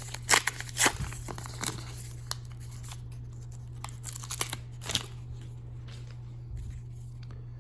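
Foil wrapper of a hockey card pack being torn open and crinkled, with sharp snaps and rustles in the first two seconds and again near the middle, over a steady low hum.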